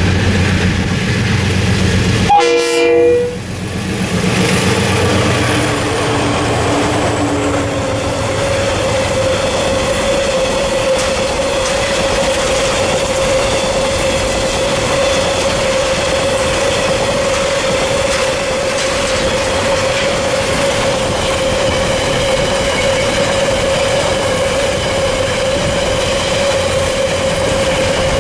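Diesel-electric coal train passing: the DXC locomotives' engine hum fades in the first few seconds after a short horn blast about two and a half seconds in. Then the loaded coal wagons roll by with clickety-clack and a steady wheel whine.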